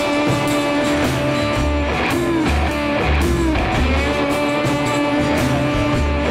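Background music led by guitar, with held notes that bend in pitch over a steady bass beat.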